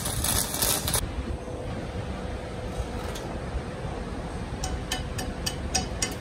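Stick-welding arc crackling on an axle shaft, stopping abruptly about a second in. Near the end, a chipping hammer starts striking the fresh weld to knock off slag: quick, ringing metal taps, about three a second.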